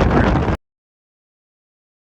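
Strong wind buffeting the microphone, a loud, even rumbling noise that cuts off abruptly about half a second in, followed by complete silence.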